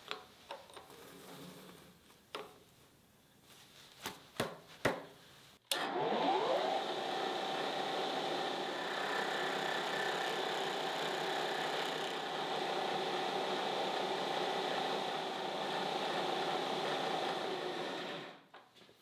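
A few metal clicks as a block is set in the vise. About six seconds in, the Enco 100-1599 vertical knee mill's spindle starts with a briefly rising tone, and the end mill cuts into the metal block with a steady grinding noise, throwing chips. The sound dies away near the end.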